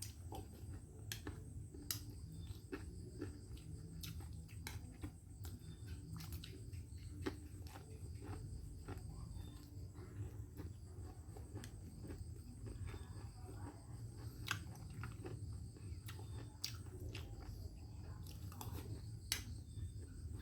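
A person eating fried fish and rice: soft chewing with scattered sharp clicks, over a low steady hum.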